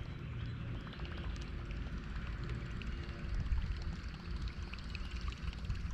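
Water splashing and gurgling over a low, fluctuating wind rumble on the microphone.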